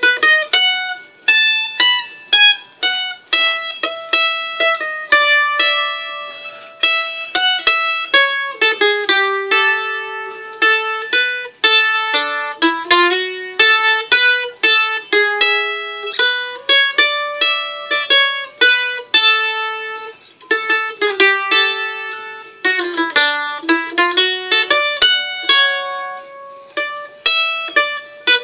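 A plucked string instrument playing an instrumental melody, note after note, each note ringing and fading.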